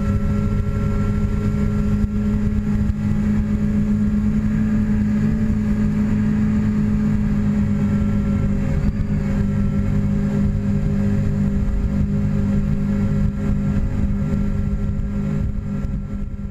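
Twin Seven Marine 627 supercharged V8 outboards running at a steady pitch under way, with the rush of water and spray, fading out near the end.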